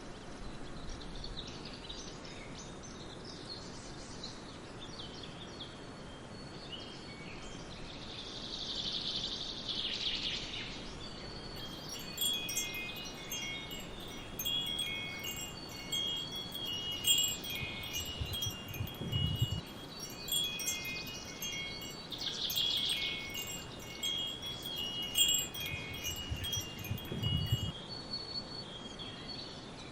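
Metal wind chimes ringing as they are knocked about, their high tones overlapping and decaying. The chimes are sparse at first and much busier through the second half, over a steady background hiss.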